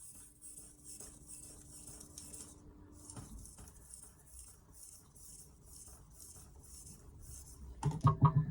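Carbon-steel kitchen knife being stroked back and forth on a 3000 grit water stone: a quick, even run of gritty scrapes at about three strokes a second, with a short pause about two and a half seconds in. A few louder knocks near the end.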